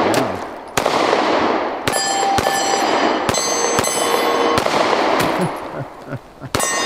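A Taurus GX4 micro-compact 9mm pistol firing a string of about seven or eight shots at an uneven pace, roughly one a second or faster. Steel targets ring after several of the hits.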